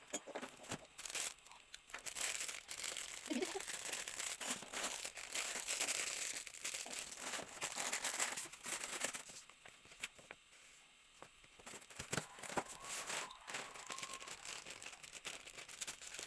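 Packaging being torn open and crinkled by hand: rustling and crackling with scattered sharp clicks, busiest for several seconds in the middle, then sparser.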